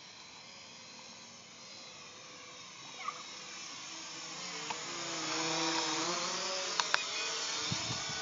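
Holystone HS270 quadcopter's brushless motors and propellers whining at speed. The whine grows louder toward the middle and its pitch bends up and down as the drone moves, with a few sharp clicks near the end.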